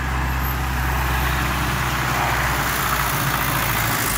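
MTZ-80 tractor's D-240 four-cylinder diesel engine running at low revs as the tractor pulls up close. It is a steady low drone that weakens and changes about three seconds in.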